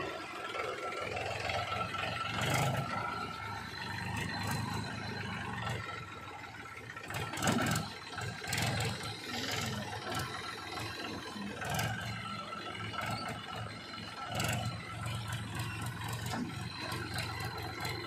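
Powertrac 434 DS tractor's diesel engine running steadily at low speed as it pulls a trolley through soft, rutted sand, with rattles and a few sharp knocks now and then.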